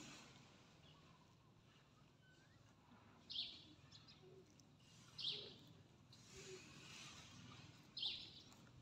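A bird chirps three times, short high calls a couple of seconds apart, over faint outdoor background noise.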